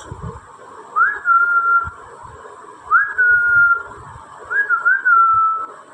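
A person whistling to call a dog: three whistles, each a quick rise into a held note that sags slightly, the last with a double rise at its start.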